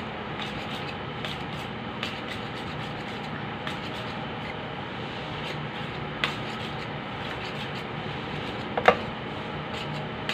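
A hand mixing sauced Samyang instant noodles in a bowl: soft rubbing with a few light knocks, the sharpest about nine seconds in. A steady low hum runs underneath.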